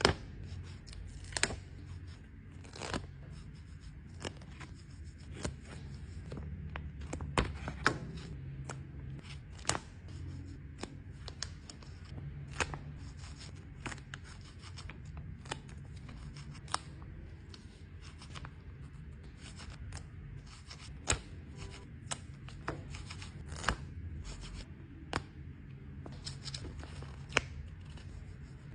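Stickers being peeled from their backing sheet and pressed down onto paper, heard as many irregular small clicks, crinkles and tearing-like peels over a faint low handling rumble.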